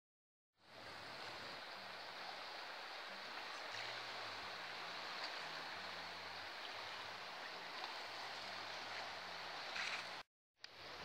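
Steady rushing of a flooded river's water. It starts after a brief silence and drops out briefly near the end.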